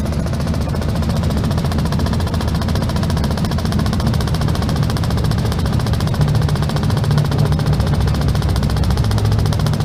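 Powermatic Model 87 20-inch vertical metal-cutting band saw, driven by its 2 hp three-phase motor, running with no cut in low range while its hand-dial variable speed control is turned down. The low hum drops in pitch in the second half as the blade slows to about 90 feet per minute.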